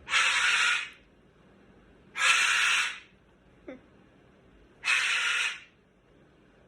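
Cockatoo giving three harsh screeches, each under a second and a couple of seconds apart, with a short falling squeak between the second and third.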